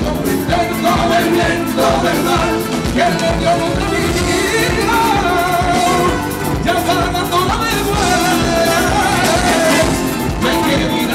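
A live band playing a gypsy rumba song: strummed nylon-string acoustic guitars with a violin playing over them.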